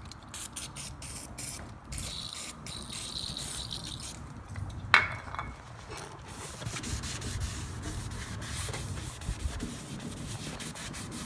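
WD-40 aerosol sprayed in short hissing sprays through its straw onto a painted lawnmower deck, then a cloth rag rubbed back and forth over the oiled deck. A single sharp knock comes about five seconds in.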